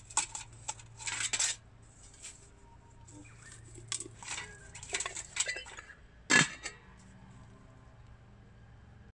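Metal charcoal extinguisher pot being handled: its perforated inner basket and wire bail handle clink and scrape against the rim in a series of short metallic clanks. The loudest single clank comes a little after six seconds, as the lid is set on the pot.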